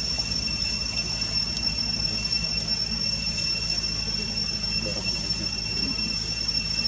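Steady high-pitched insect drone over a low rumbling background.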